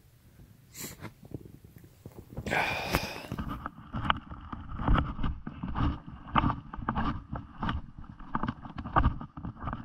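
Hurried footsteps crunching through deep snow, about two to three steps a second, with clothing rustling against the camera. The steps start a few seconds in, after some handling clicks and a short rustle.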